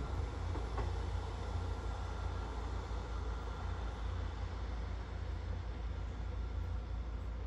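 Class 159 diesel multiple unit's diesel engines pulling away into the distance, heard as a low, steady rumble.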